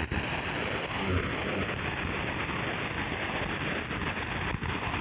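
Shortwave receiver static: a steady hiss of band noise from an Icom IC-718 tuned across channels with no station on them, with a brief dropout about four and a half seconds in.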